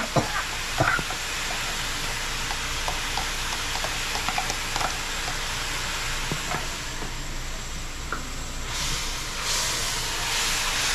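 Browned sugar, curry and oil sizzling and bubbling in a wide aluminium pot, with a steady hiss and scattered small pops. This is the browning stage for curry/stew chicken. The sizzle grows louder and brighter near the end as a wooden spoon stirs the pot.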